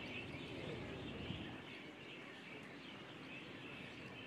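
Faint open-air ambience with birds chirping in the background.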